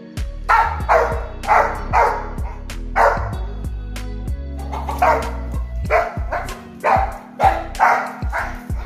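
Young Rottweiler barking repeatedly, about a dozen sharp barks in quick bouts with a short pause midway, over background music.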